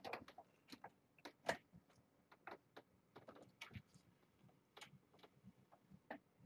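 Near silence broken by faint, irregular light clicks and rustles of movement: two kittens tussling on a fleece blanket and a hand moving a plush toy in their pen.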